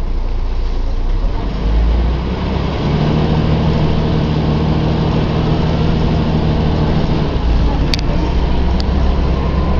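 Volvo B10M bus's inline-six diesel engine running steadily. About three seconds in, its note steps up and holds until about seven seconds, then drops back down. Two short clicks come near the end.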